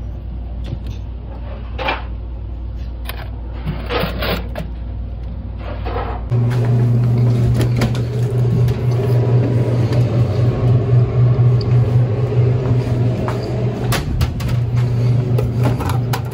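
Clicks and knocks of a vending machine being unlocked and opened, with its cash hardware handled, over a steady machine hum. About six seconds in, the hum jumps to a louder, higher one.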